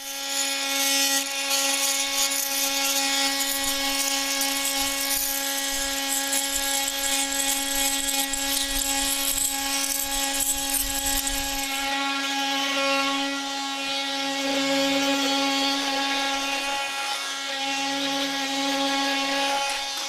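Bosch GOP 250 CE 250-watt oscillating multi-tool starting up and running with a steady hum, the sound of the work changing about twelve seconds in.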